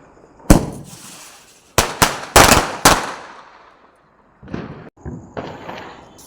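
Firecrackers going off: a sharp bang about half a second in, then a quick run of about five loud bangs over roughly a second, followed by a few fainter pops near the end.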